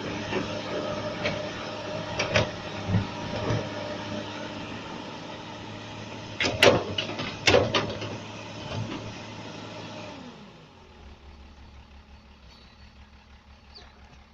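Excavator working: its diesel engine runs steadily under throttle, with several loud clanks and knocks, two about two seconds in and two more around six to seven and a half seconds in. About ten seconds in, the engine drops to a much quieter low idle.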